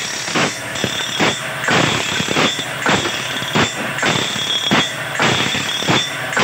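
Automatic bandsaw blade sharpening machine grinding a sawmill band blade tooth by tooth: the abrasive wheel grinds against the steel in a burst that repeats a little under twice a second, over the steady running of the machine's motor.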